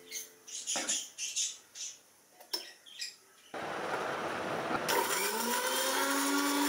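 A few light clinks and rustles from a stainless steel mixer-grinder jar and its plastic lid. About halfway in, the electric mixer-grinder motor starts and runs loud and steady, its whine rising as it spins up, grinding soaked green gram (moong dal) with ginger and cumin into dosa batter.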